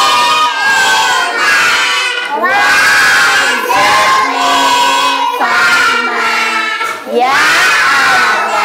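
A class of young children chanting the prayer before lessons in loud sing-song unison, with the teacher's voice among them.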